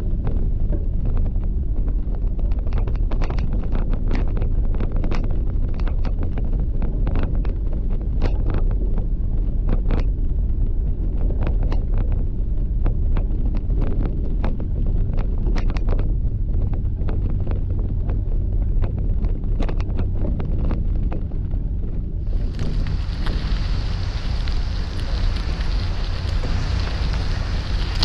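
Wind rumbling on the microphone of a moving camera, over gravel crunching and clicking irregularly under wheels or feet. Near the end a steady, louder hiss sets in.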